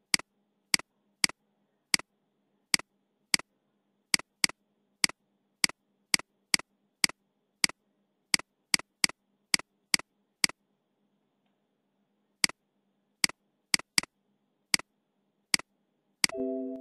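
Computer mouse clicking, sharp single clicks at an irregular pace of about two a second, with a pause of about two seconds after the middle. Near the end a short computer alert tone sounds as an error dialog pops up.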